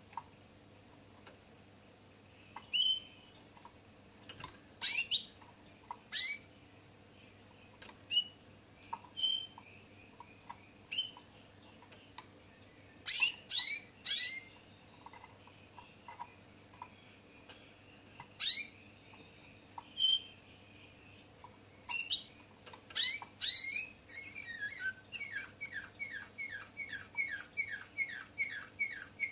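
Caged canary calling in short, separate chirps one every second or two, then near the end breaking into a fast run of rapidly repeated notes, the start of its song.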